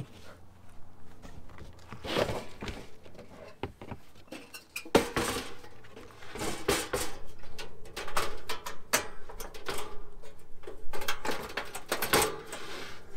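Handling noise at the back of an SUV: a foam mattress section being shoved and folded, then a portable two-burner camp stove set down on a plywood platform and its lid opened. Irregular rustling, knocks and clunks, with a sharp knock about five seconds in and a cluster of clatter near the end.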